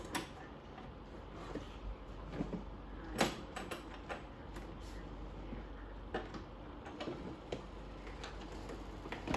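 Scattered small clicks and knocks of plastic and metal parts being handled at the wheel hub of a children's electric ride-on quad as a wheel's washer and nut are fitted by hand. The loudest knock comes about three seconds in.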